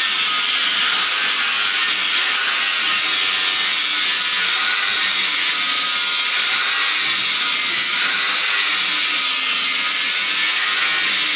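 Electric power tool running steadily on wood, a loud even whirring noise without a break.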